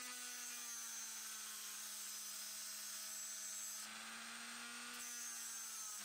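Handheld rotary tool with a small abrasive wheel running at speed against a die-cast metal toy truck cab: a steady motor whine over a hiss of grinding, shifting slightly about four seconds in.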